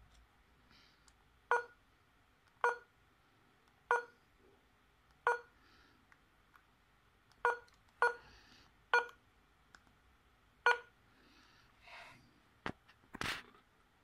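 Keypad beeps of an Itelco IT2500 mobile phone as its menu keys are pressed: eight short beeps of the same pitch at uneven intervals. Near the end come a sharp click and a brief knock.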